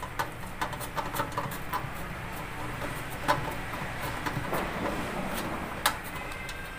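Small clicks and scratching of bare copper speaker wire being worked into the speaker binding posts of a Konzert AV-502B amplifier, with a few sharper clicks, the loudest about three seconds in and near the end, over a low steady hum.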